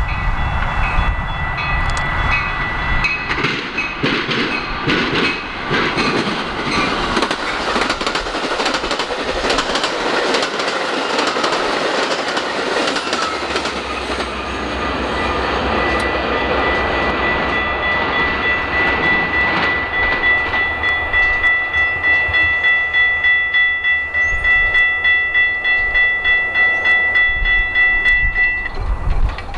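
Metra diesel commuter train passing close by, wheels clicking over rail joints with its locomotive running at the rear. A grade-crossing warning bell rings at a steady pulse and stands out most in the last dozen seconds as the train clears.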